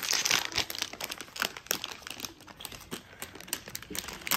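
Foil toy packet crinkling and crackling as it is pulled open by hand, loudest in the first half second.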